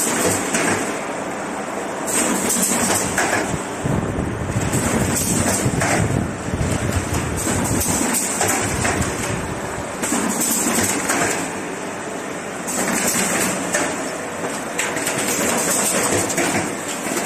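Automatic corrugated partition assembling machine running: a dense, steady mechanical clatter and whirr of its feeders and conveyor, with cardboard partitions knocking as they are handled. It gets louder and quieter in turns every few seconds.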